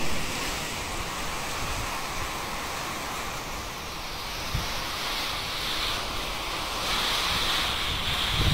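Typhoon wind and rain, with gusts buffeting the microphone: a dense, steady hiss over an uneven low rumble, growing a little louder about seven seconds in.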